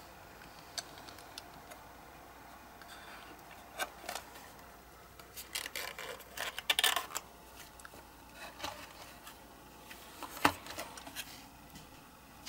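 Handling of a thin printed card box as a diecast model car is slid inside and the end flap is folded and tucked shut: scattered card rustles and small clicks, a burst of rustling midway, and one sharp tap about ten seconds in.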